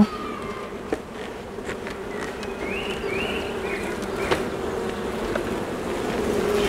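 A honeybee colony buzzing steadily from an open hive during a frame inspection. Two sharp clicks come about one second and four seconds in, and a few short chirps come around the middle.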